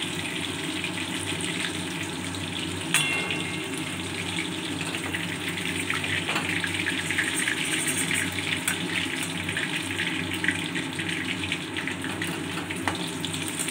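Coated chicken pieces deep-frying in hot oil in a steel wok: a steady sizzle with fine crackling, the pieces fried through and being turned for lifting out. A few sharp metal clicks of the slotted spoon against the wok.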